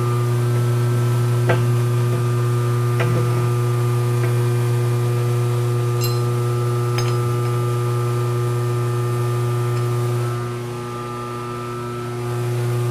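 Metal lathe running steadily while turning a fiberglass tube, a strong even hum with a few light clicks. The level dips briefly near the end.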